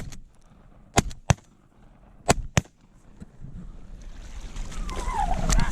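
Four shotgun shots in two quick pairs, a fraction of a second apart, as hunters fire at incoming ducks. Wind noise on the microphone rises afterwards.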